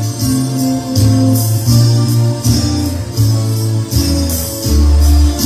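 Instrumental lead-in to a romantic ballad: sustained bass notes under a steady percussion beat, with no singing.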